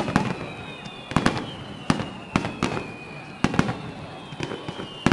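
Fireworks display going off: an uneven run of sharp bangs from bursting shells, about a dozen in five seconds, some in quick pairs.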